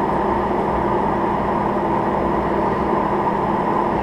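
Steady mechanical hum with a constant low tone, unchanging throughout.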